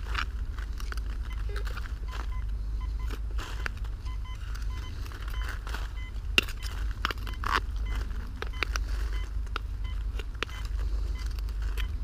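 A corroded metal find, a knife blade in a metal tube, handled in gloved hands: scattered metallic clicks and light scrapes with rustling, over a steady low rumble.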